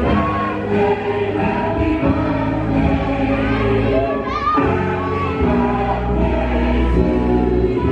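Music: a song with singing over a deep, sustained bass line.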